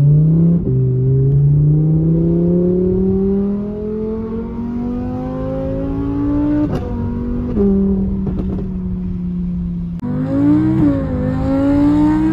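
Audi R8 V10 Plus's naturally aspirated V10 through a Quicksilver exhaust, heard from inside the cabin under acceleration. The engine note climbs steadily for several seconds, drops sharply at a gear change with a short click about two-thirds of the way in, and then holds steady. Near the end it rises and falls again.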